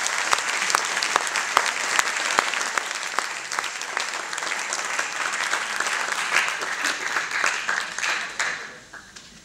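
Audience applauding: dense clapping that fades away about eight and a half seconds in.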